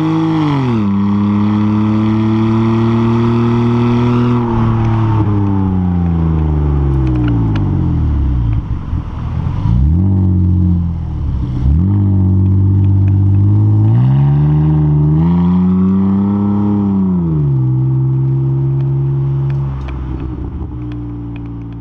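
BMW E46 330i's 3.0-litre straight-six heard at the tailpipe through a muffler-deleted exhaust while driving. Its pitch drops sharply just after the start, sinks slowly to a low point in the middle, climbs again under acceleration and drops sharply about two-thirds of the way through.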